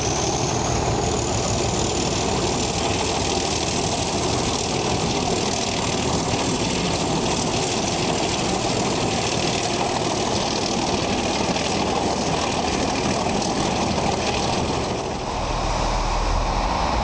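Diesel train engine running steadily, with a thin high whine that climbs in pitch during the first second. About 15 s in the sound dips briefly, then returns with a deeper low rumble.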